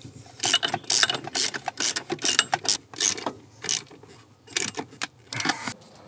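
Socket ratchet wrench clicking in quick irregular bursts as it turns a bolt on a steering column clamp.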